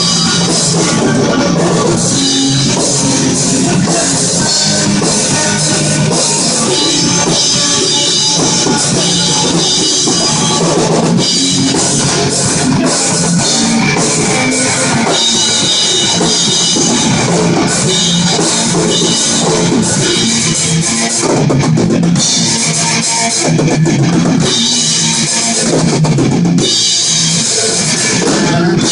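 Rock music with a full drum kit, bass drum and guitar, playing loud and steady.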